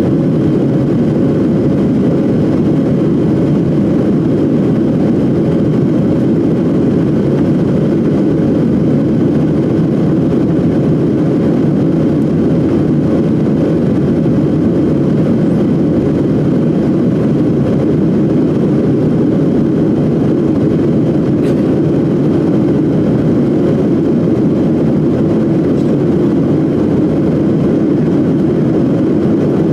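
Airliner cabin noise: the steady, even drone of the jet engines and rushing air heard from inside the passenger cabin, with a faint steady hum.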